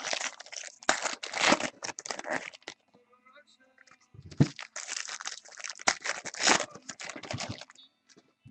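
Baseball card pack wrappers being torn open and crumpled by hand: two bouts of crinkling and tearing, each a few seconds long, with a short pause between.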